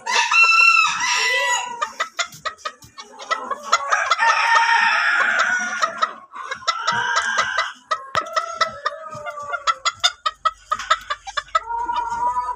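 Chickens calling: clucking, with a rooster crowing in a long held call a few seconds in and more calls later. Many short sharp clicks run through the calls.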